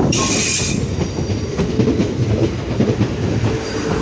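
Electric multiple-unit train moving through the platform: a steady low rumble with wheels clicking over the rail joints, and a brief hiss about the first second.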